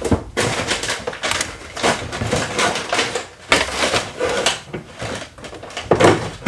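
Hands rummaging through a kitchen cupboard: bottles and cans clattering and knocking against each other and the shelf, with a loud knock about six seconds in.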